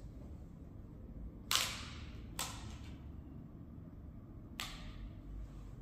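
A thin Communion wafer (the large altar host) being broken by hand over the chalice: three short, crisp snaps. The loudest comes about a second and a half in, another about a second later, and a fainter one near the end.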